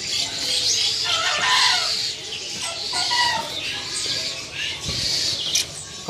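Many caged birds chirping and calling at once, a dense chatter of high calls, with a lower, drawn-out call standing out about one to three seconds in.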